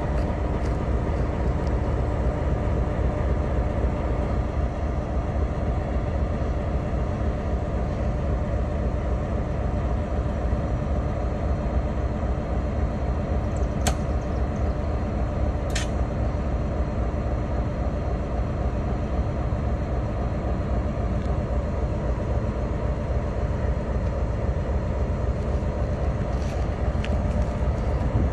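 Buffalo & Pittsburgh diesel road-switcher locomotive 2003 running steadily as it creeps along the yard track, a heavy low rumble with a steady engine hum. Two short, sharp high-pitched sounds come about two seconds apart around halfway through.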